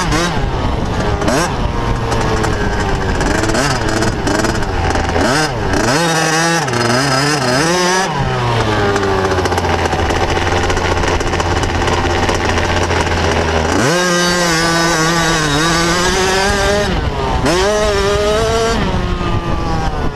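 Motocross bike engine heard onboard at close range, revving up and down as the rider accelerates and eases off over the track, held steady for several seconds in the middle, then cut back sharply and pulled up again.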